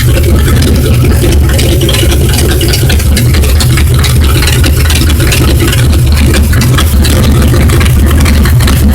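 1968 Ford Galaxie's engine idling steadily and loudly, freshly repaired and on its first run after the repair.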